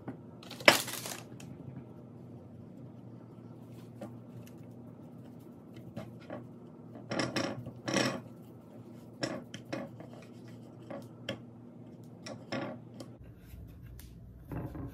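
Fish fillets being dredged in flour by hand on ceramic plates: scattered knocks, taps and scrapes of fingers and fish against the plates, with one sharp clack about a second in. A steady low hum runs underneath.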